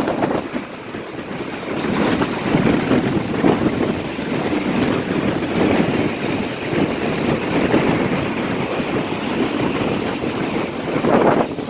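Storm wind from a hurricane gusting hard across the microphone, over choppy bay waves sloshing and breaking against the pilings of a wooden pier. The noise swells and falls with the gusts and waves.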